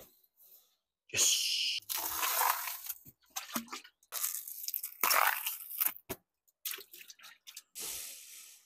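Water sloshing and splashing in an ice bath tub as a flat plastic scoop is worked through it, in several noisy bursts with short breaks.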